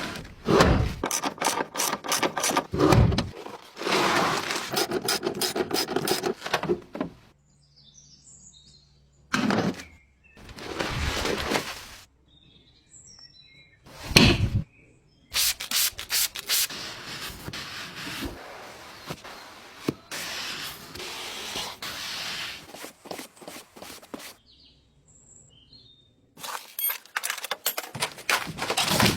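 Scrubbing and rubbing on a car being cleaned, in several stretches that start and stop abruptly, with short quiet gaps between them where faint bird chirps can be heard.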